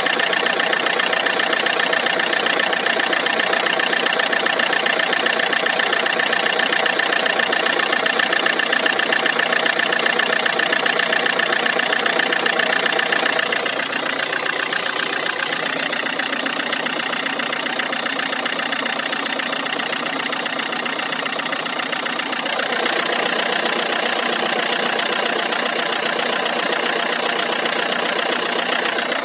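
PSA DW10CTED4 2.0 HDi four-cylinder turbodiesel idling steadily with a knock whose cause the owner is trying to find. The sound changes about halfway through and again near the end.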